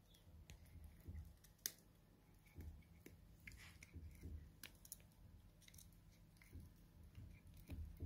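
Cat chewing on a catnip stick: faint, irregular crunching and clicking as its teeth work the wood, with one sharper click just under two seconds in.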